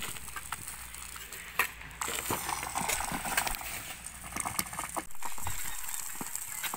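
Hand hoes scraping and chopping into dry, stony soil, pulling it back into a pipe trench, heard as irregular scrapes and knocks.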